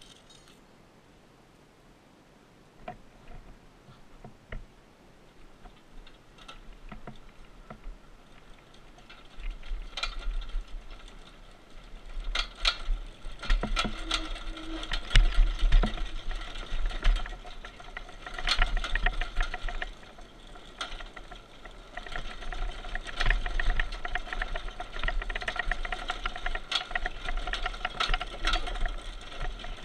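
Baja Doodlebug minibike coasting downhill on loose gravel with its engine dead and chain removed: the unsuspended frame and parts rattle and clatter over the rocks, with rough tyre noise and low wind rumble. It is quiet at first, and the clatter builds after about a third of the way in as the bike picks up speed.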